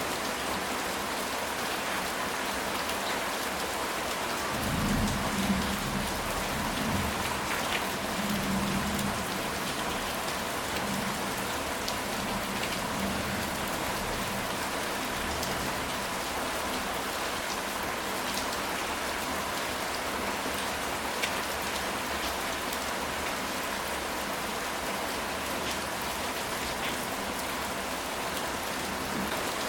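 Steady rain falling on a ceramic tile roof, an even hiss with scattered drop ticks. About five seconds in, a low rumble of thunder rolls for around four seconds.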